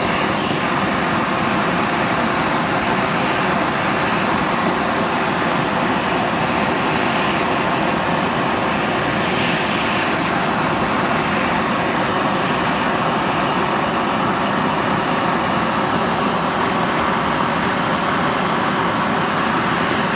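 Gas blowtorch burning steadily against a scooter exhaust muffler, with flames from the carbon burning out inside: an even, unbroken rushing noise.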